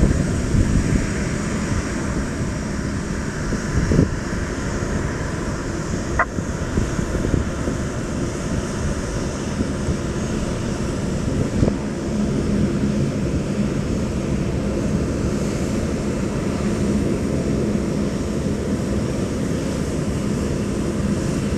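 Gusty wind buffeting the microphone over the steady rumble of distant jet airliner engines, with a few sharp clicks along the way.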